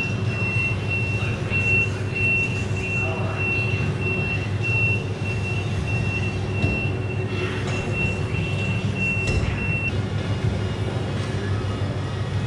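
A vehicle reversing alarm beeping steadily at one high pitch, about two and a half beeps a second, stopping just before the end, over a steady low hum.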